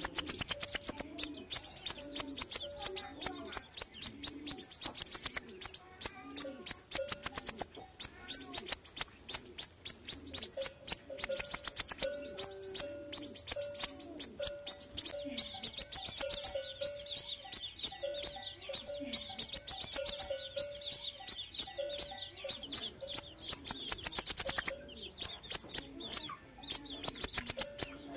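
Sunbird song: long runs of very rapid, high, thin chipping trills, broken by short pauses, as played for a lure call.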